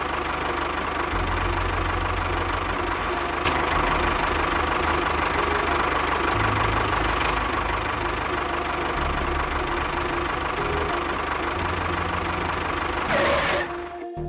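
A small engine-like motor running steadily. Under its even hum, a low rumble steps up and down every few seconds. It cuts off shortly before the end.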